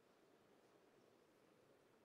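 Near silence: faint, steady room tone.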